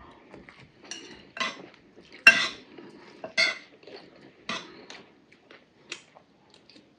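Metal spoons clinking and scraping against ceramic plates of rice during a meal: a series of irregular clinks, the loudest about two seconds in.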